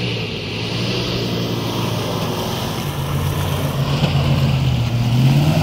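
Jeep Grand Cherokee engine pulling hard up a muddy slope. The engine note holds steady, then rises in pitch and grows louder in the last couple of seconds as the SUV climbs close.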